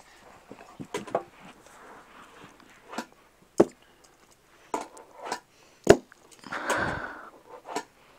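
A fingerboard knocking and clacking as it is popped, landed and ridden against a carpet and a miniature stair set: a string of sharp, separate knocks, with a longer rustling scrape about six and a half seconds in.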